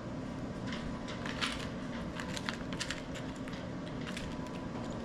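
Peppering fish fillets: a scatter of short, dry clicks and crackles, most of them between about one and three seconds in and one more a little after four seconds, over a steady faint background hum.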